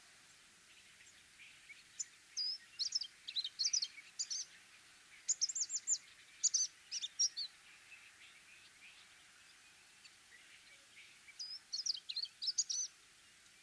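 Orange-breasted sunbird singing: rapid, high, thin twittering phrases of quick up-and-down notes. One bout runs for about five seconds and a second, shorter bout comes near the end, with a faint background hiss between them.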